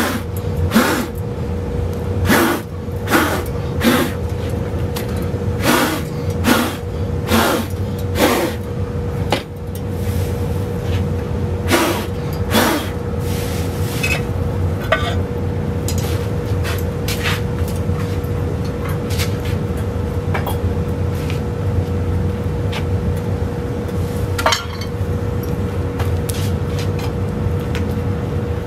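Hot raku pots and metal tongs clinking and knocking against a metal trash can as the pots are set into the reduction can, about once a second at first and then only now and then. A steady low roar with a constant hum runs underneath.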